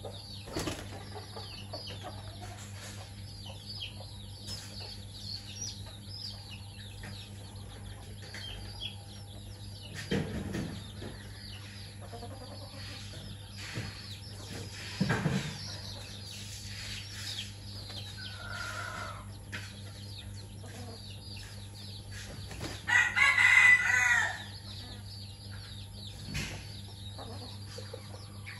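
Chickens in a pen: chicks peeping high and thinly throughout, with hens clucking. Two dull thumps come partway through, and about three-quarters of the way in a loud chicken call lasts about a second and a half.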